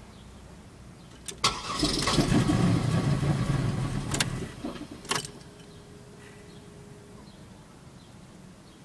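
2000 Pontiac Bonneville SE's 3.8-litre V6 being cranked by the starter for about three seconds without catching, then falling quiet: the engine won't start. A sharp click comes just before the cranking, and two more clicks follow it.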